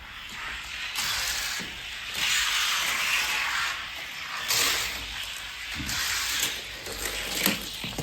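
Two Matchbox die-cast cars, a Corvette and a stock car, rolling down a toy race track: a rattling whir of small wheels on the track that swells and fades, with a sharp clack near the end.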